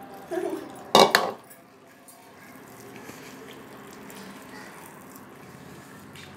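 Water splashing into a bowl of pakora batter about a second in, then a hand mixing and squishing the thick gram-flour batter with onions.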